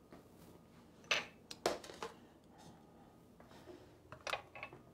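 A few scattered light knocks and clicks of kitchen handling, among them a bowl of sliced potatoes set down on the countertop; the loudest come about a second in and again near the end.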